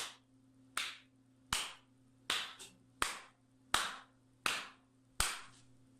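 Eight sharp, clap-like strikes at a slow, even pace, about one every three-quarters of a second, over a faint steady low hum.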